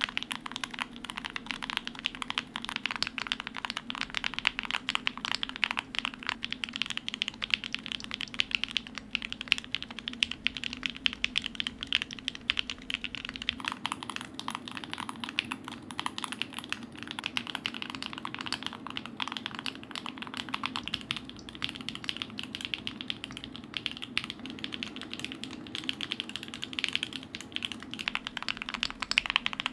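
Continuous fast typing on a TKD Cycle 8 TKL custom mechanical keyboard fitted with PBT Crosshair keycaps: a dense, even run of keystroke clacks.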